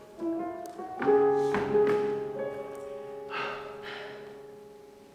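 Live keyboard music playing slow, sustained chords. One long held note rings on and slowly fades away near the end.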